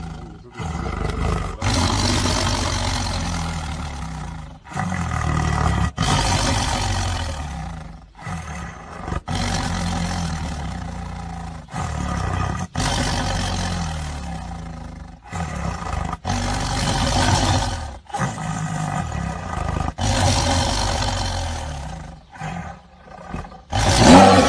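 Tiger growling over raw meat in a string of long, deep growls a few seconds each, broken by short pauses. A loud open-mouthed snarl comes near the end.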